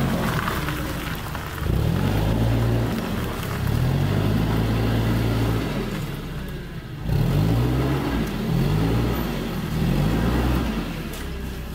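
LPG-powered Jungheinrich forklift engine running and revving up and down several times as the truck drives and manoeuvres with a loaded pallet.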